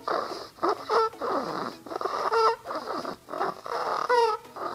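A sleeping dog snoring in short, rapid breaths, with a high whistling squeak on three of them.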